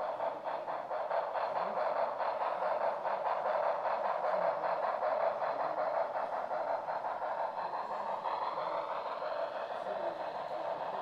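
Model train of a Santa Fe 3460 streamlined steam locomotive and passenger cars running past: a steady rolling rumble of wheels on track with rapid clicking, and a tone that rises in pitch in the second half.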